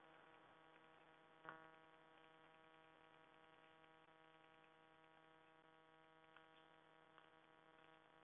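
Near silence: a faint steady electrical hum, with a faint click about a second and a half in.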